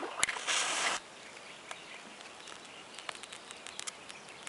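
A wooden safety match struck once on the striking strip of a matchbox: a sharp click, then about half a second of scraping hiss as the head catches and flares, after which the burning match is quiet.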